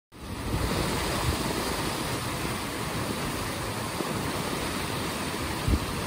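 Steady rushing of a flash-flooded desert river running bank to bank, with low gusts of wind buffeting the microphone, one of them near the end.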